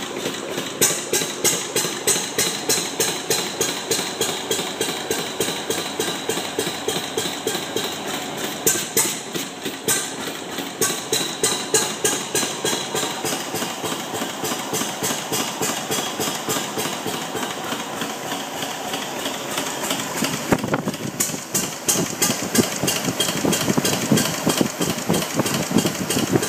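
Freshly rebuilt Arrow C-66 stationary engine running at idle with a steady, regular beat of exhaust pulses, getting louder and busier about two-thirds of the way through.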